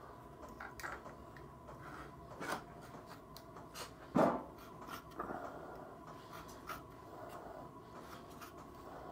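Stanley knife blade scraping and slicing through the edge of a paper gasket, run along a metal cylinder cover: faint scratching with a few sharp clicks, the loudest about four seconds in. The blade is already going blunt.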